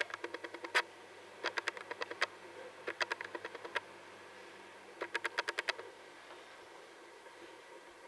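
Quick light clicks in four short runs, several clicks to each run, over faint room hiss.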